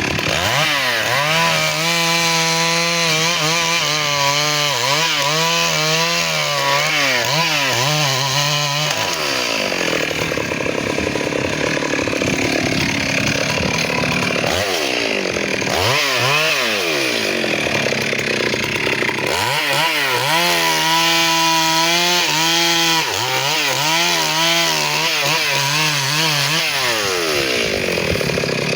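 Two-stroke chainsaw running at high revs and cutting teak, its engine note wavering up and down as it works under load. In the middle stretch the note turns rougher and less distinct.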